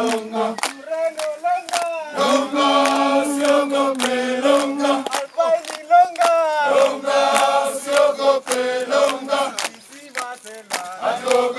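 A group of porters singing a traditional Swahili climbing song together, long held notes in call-and-response, with sharp hand claps through it. The singing drops off briefly about ten seconds in before the next call.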